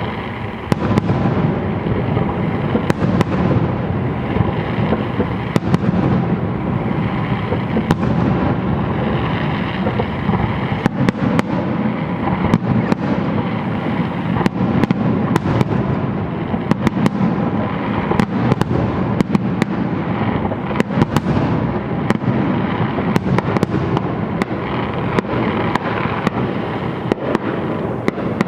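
Fireworks display: a continuous barrage of shell bursts, a dense low rumble packed with many sharp bangs and crackles.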